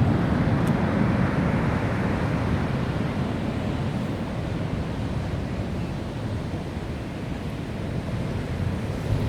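Heavy storm surf breaking and rushing in, with wind buffeting the microphone. The rush eases a little in the middle and builds again near the end.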